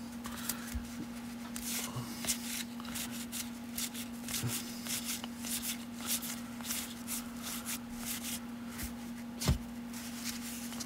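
Cardboard baseball cards being flicked and slid one at a time off a stack in the hands, a steady run of light papery clicks and rustles. A faint steady hum sits underneath, and there is a single thump near the end.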